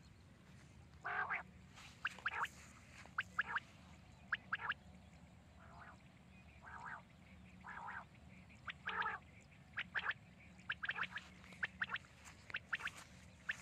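Quail calling: short, sharp notes in clusters of two or three, repeated about every second, with a few lower, softer calls in between.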